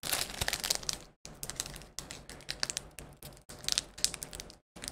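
Foil booster-pack wrapper crinkling as it is handled, a dense run of crackles broken by two short pauses.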